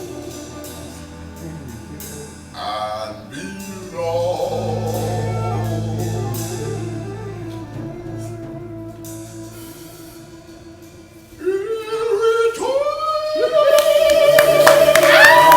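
A slow ballad sung with instrumental accompaniment. About eleven seconds in it swells into long, loud held notes at the song's climax.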